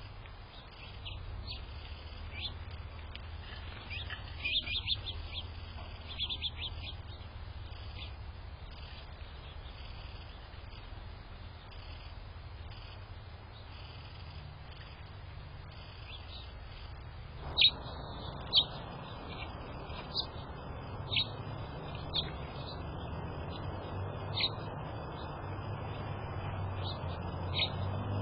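Small songbirds chirping: short high chirps, in a few quick clusters at first, then single sharp chirps about once a second from a little past halfway. A steady low hum runs underneath.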